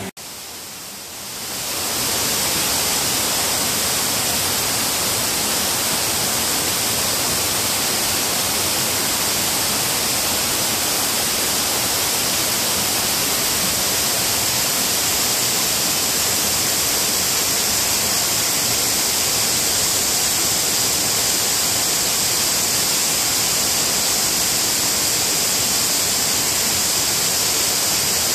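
Small waterfall cascading over rocks: a steady rush of water with a bright hiss. It fades in over the first couple of seconds.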